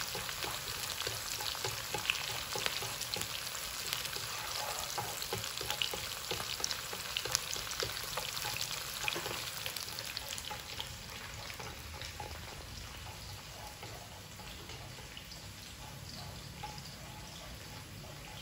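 Sliced garlic sizzling and crackling in hot oil in a wok while it is stirred with wooden chopsticks, frying until crisp and just golden. The sizzle grows gradually quieter over the second half.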